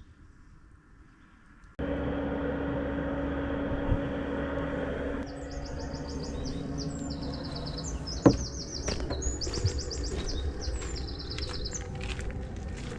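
A small songbird singing repeated rapid high trills over steady outdoor background noise, with one sharp click about eight seconds in. Before the song, after a near-silent start, a steady hum with two level tones runs for a few seconds.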